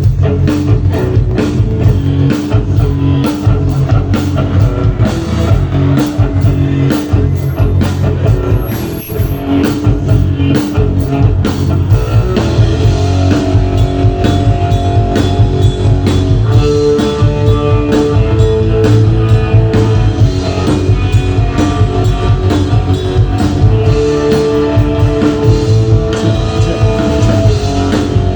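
Rock music played on guitar with a drum kit, loud and continuous.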